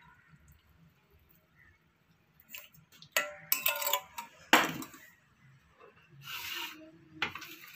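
Several clinks and knocks of kitchenware being set down (a steel saucepan, a wire tea strainer and a ceramic tea cup), the loudest a little past halfway, followed by a short scrape as the cup is moved across the counter toward a tray.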